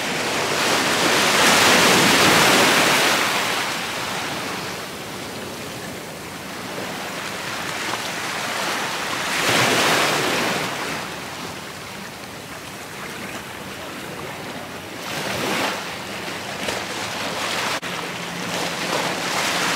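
Small sea waves breaking and washing over the rocks of a beach jetty, swelling and falling back every several seconds. The loudest surges come about two seconds in and again near the middle.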